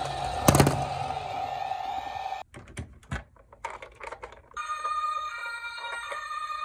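Toy police cars' electronic sound modules: a steady electronic tone with one loud knock about half a second in. Then a short stretch of clicks from plastic toy cars being handled, and from about four and a half seconds in a layered ringing electronic tune from a toy police SUV.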